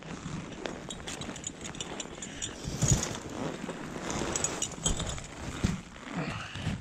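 Snow crunching and knocking close to the microphone in an uneven run, with a louder knock about three seconds in.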